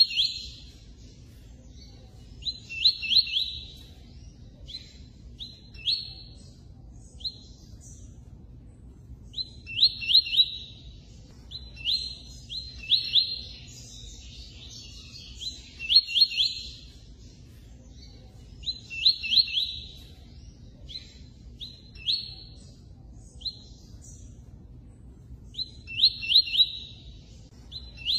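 Double-collared seedeater (coleiro) singing: short phrases of quick, high chirping notes, a new phrase every couple of seconds.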